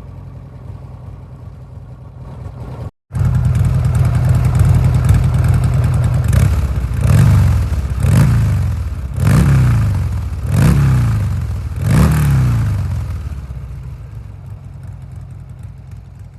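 1997 Buell S1 Lightning's air-cooled V-twin idling, then revved five times in quick succession, each blip rising and falling back to idle, before settling to idle again. The sound breaks off for a moment about three seconds in and comes back louder.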